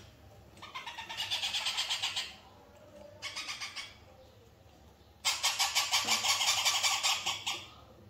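Ringneck parakeet chick giving rapid, pulsing begging calls, about nine a second, in three bouts, the longest and loudest near the end: a hungry chick begging while being hand-fed with a syringe.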